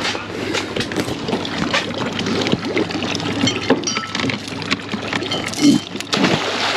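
A fluke anchor on chain and rope being hauled up out of the water at a pontoon boat's stern, trailing weeds: water splashing and dripping off it, with the chain clinking and scattered knocks against the deck. This is the back anchor being retrieved after it dragged along the bottom.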